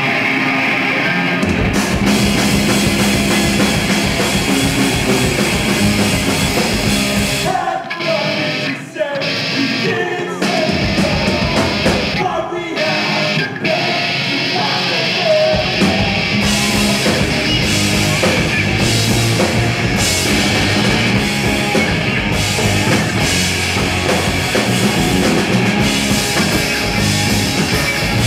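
Loud rock music with electric guitar and drums. The bass end drops out twice in the first half and then comes back in with the full band.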